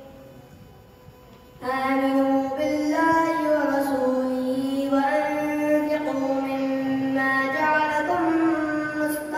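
A boy's voice reciting the Quran in a melodic chant into a microphone, drawing out long held notes with slow ornamented turns. There is a pause for breath at the start, and he resumes about a second and a half in.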